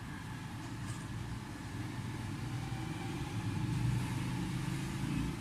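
Steady low mechanical rumble, growing a little louder about three seconds in.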